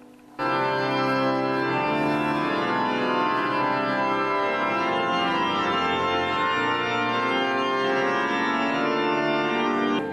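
Church pipe organ playing slow, sustained chords that change every second or so, in a reverberant church. It comes in about half a second in and cuts off abruptly near the end.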